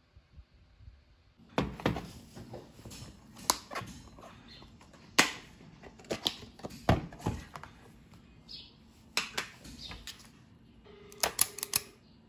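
Clinks and knocks of a glass bowl and a plastic ice cream tub being handled on a glass tabletop, then a quick cluster of clicks and scrapes near the end as a spring-lever ice cream scoop works in the bowl.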